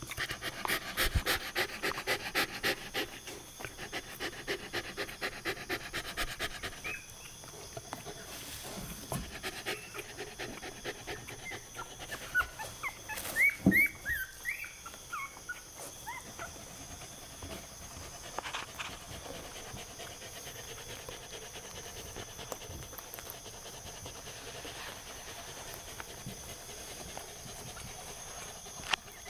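Newborn Miniature Australian Shepherd puppy breathing in quick rhythmic puffs, about three a second, for the first several seconds, then giving a short run of high-pitched squeaks about halfway through.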